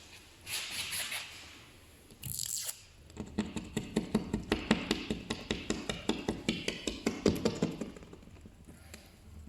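Quick repeated scraping or rubbing strokes on a car windscreen, about four a second for roughly five seconds, preceded by two short hisses. The strokes fit the surface of a chip repair being worked.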